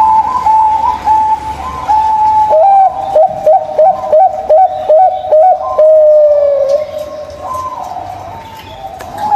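Zebra doves (local perkutut) cooing. A run of short clipped notes, about three a second, each ending in a quick downward flick, leads into one long held coo that sinks slightly in pitch. Other coos at a slightly different pitch overlap before and after the run.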